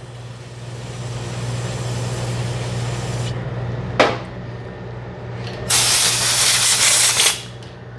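Aerosol brake cleaner spraying to degrease the screws. There is a softer hiss over the first three seconds, a sharp click about four seconds in, then a loud spray lasting about a second and a half near the end.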